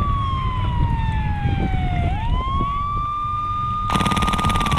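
A siren wailing: a steady tone that slowly sinks in pitch, swoops back up about two seconds in and holds, then starts to fall again near the end. Near the end, rapid full-auto airsoft gunfire starts over it.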